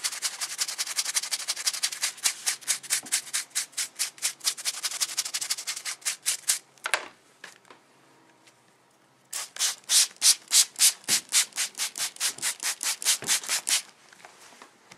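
Blanket fabric rubbed hard against itself by hand to scrub cleaner into an old blood stain: fast, even scratchy strokes, about five a second. The rubbing stops for about two seconds near the middle, then starts again.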